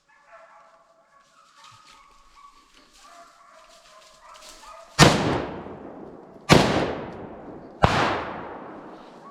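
Hunting hounds baying, then three rifle shots from a Benelli Argo semi-automatic in .300 Win Mag, about a second and a half apart, each ringing out and fading.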